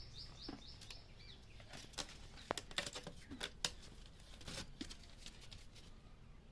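Chicks peeping faintly: a quick run of about seven short falling peeps in the first second or so. Scattered light taps and clicks follow.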